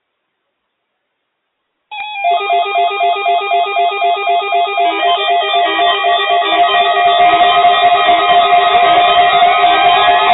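Several NOAA weather radio receivers sounding their alert alarms for the required weekly test. Pulsed electronic beeping starts suddenly about two seconds in at about four beeps a second, then thickens into overlapping beeps and tones as more alarms join.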